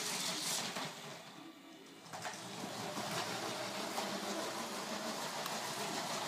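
Lego City 60051 high-speed passenger train running on plastic Lego track: its battery-powered train motor whirs and the wheels rattle over the track. The sound dips about a second in, then comes back steady.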